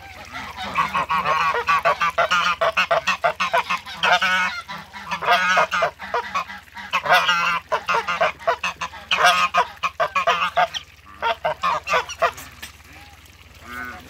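Domestic geese (Toulouse and hybrid) honking in a loud, rapid run of calls that stops about twelve seconds in, followed by one last short honk near the end.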